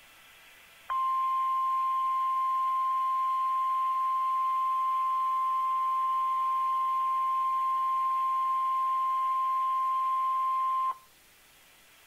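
NOAA Weather Radio's 1050 Hz warning alarm tone: one steady high-pitched beep held for about ten seconds, starting about a second in and cutting off sharply near the end. It signals that a warning broadcast follows.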